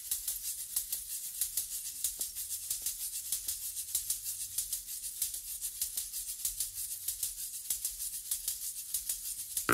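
Music: a shaker playing a fast, even rhythm of crisp strokes over a faint low bass, opening a Latin-tinged jazz track before the trumpets enter.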